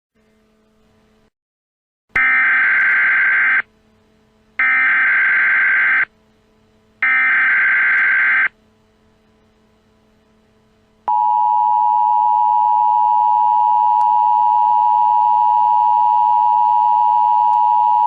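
Emergency Alert System broadcast tones: three loud, harsh bursts of SAME header data, each about a second and a half long with short gaps between them. Then, from about eleven seconds in, the steady two-tone EAS attention signal sounds without a break, marking the start of an alert message.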